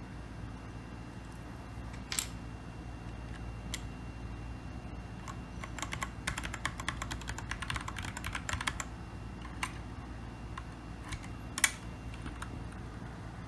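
Keychron K2 mechanical keyboard with brown switches being typed on. A few single keystrokes come first, then a quick run of rapid typing in the middle, then a few more single presses, with a sharper key strike near the end.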